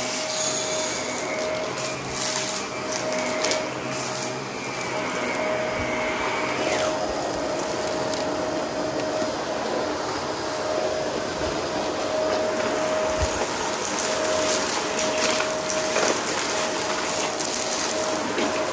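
Shark Navigator upright vacuum running with a steady motor whine as its brushroll is pushed over a rug and concrete floor. Crunching and crackling of debris being picked up by the brushroll grows denser in the second half.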